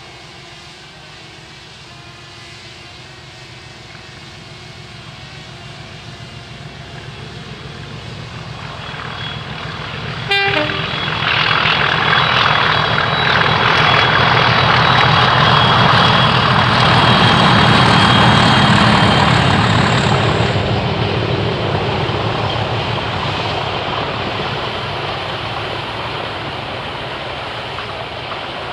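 A pair of Network Rail Class 97/3 diesel locomotives (rebuilt Class 37s with English Electric V12 engines) passing under power with a train of wagons. The engine thrash builds as they approach, is loudest for about ten seconds with a steady high whistle over it, then fades as the wagons roll by. There is a short toot about ten seconds in.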